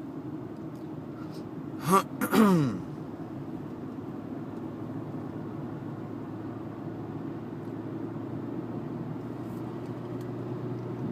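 Steady engine and road noise inside a moving car. About two seconds in, a short, loud vocal sound from the driver with a falling pitch, not words.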